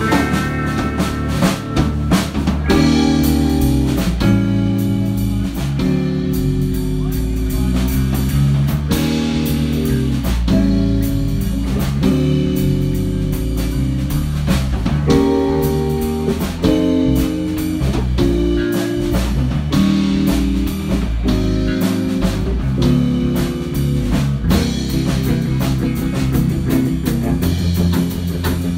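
Blues-rock music with electric guitar and a drum kit keeping a steady beat.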